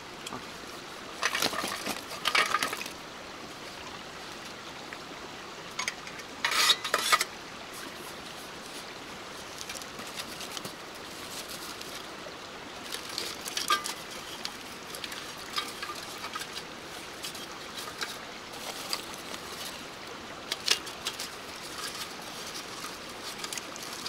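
Camping gear being handled: rustling of a fabric pouch and backpack with metal clinks as a Decathlon Quechua 500 wood-burning stove is taken out, in a few bursts, the loudest about six to seven seconds in. A stream runs steadily underneath.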